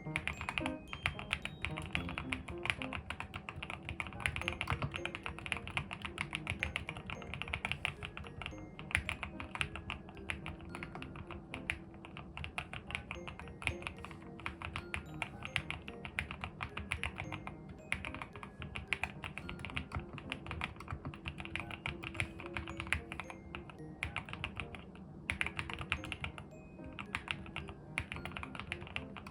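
Typing test on a mechanical keyboard: a rapid, irregular stream of keystrokes, with background music underneath.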